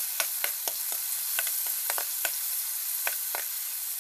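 Garlic, onion and tomato sizzling in hot oil in a wok, with a steady hiss. A metal spatula stirs them, making about a dozen quick taps and scrapes against the pan, with a short pause a little after the middle.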